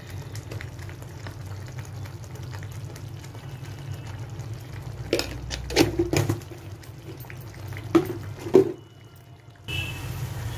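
Tomato-masala sauce simmering and sizzling in a metal kadhai, with a steel spoon knocking against the pan several times in the second half.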